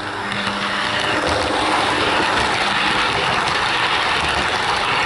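Hornby Class 395 Javelin model train running along the track: the motor's whirr and the rolling of the wheels on the rails. It grows louder over the first second or so as the train comes close, then holds steady with faint ticking.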